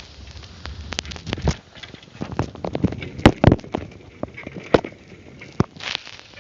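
A run of irregular sharp clicks and knocks, the loudest a cluster about three seconds in.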